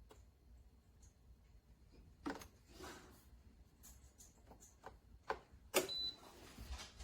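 A few separate sharp clicks and knocks, the loudest a little before the end, over faint room tone.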